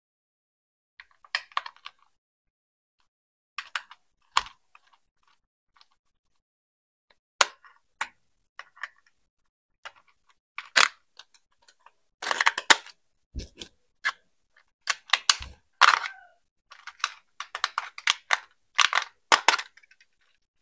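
Hands unboxing a toy RC car: irregular clicks, taps and short crinkling rustles of plastic and packaging, in scattered bursts with silent gaps, coming thicker in the second half. Two dull thumps land among them, the first about two-thirds of the way through.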